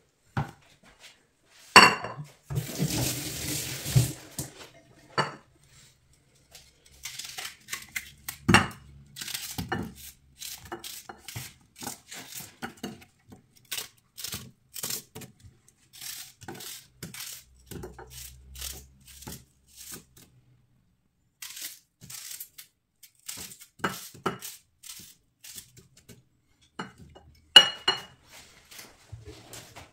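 Kitchen handling sounds of a ceramic plate and a kitchen knife: a sharp ringing clink as the plate is set down about two seconds in, then many small clicks and taps as an onion is cut by hand and the pieces fall onto the plate, and a second ringing clink of plate and knife near the end.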